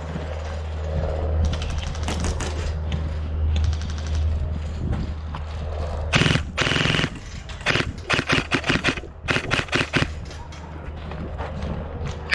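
Airsoft guns firing repeated bursts of rapid shots, the bursts coming and going and loudest from about six to ten seconds in. A steady low rumble runs underneath for the first half.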